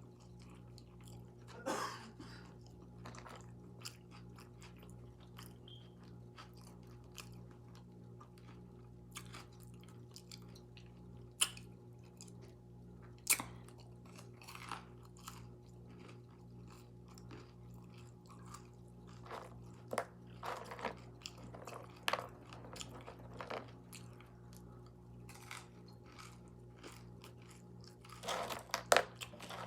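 A person chewing food close to the microphone, with wet lip-smacking and mouth clicks scattered through and a few sharper clicks. A steady low hum runs underneath.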